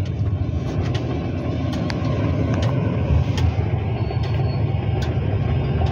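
Steady low rumble of a car's engine and tyres on the road, heard from inside the moving car's cabin, with a few light clicks.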